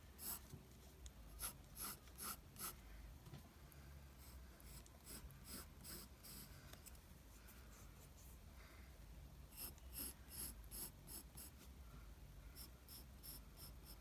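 Pencil drawing on paper: short scratchy strokes in quick runs of three to six, with pauses between.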